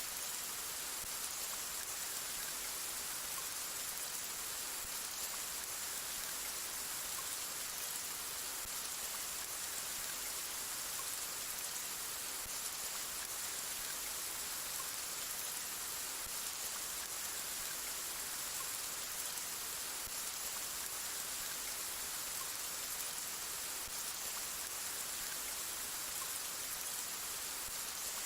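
Steady rain falling, an even hiss with most of its weight in the high range and no thunder.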